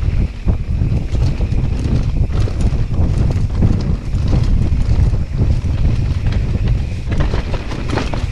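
Wind buffeting the microphone over the rumble of an electric mountain bike's tyres rolling fast down a rough dirt and stone trail, with frequent short knocks and rattles from the bike over the bumps.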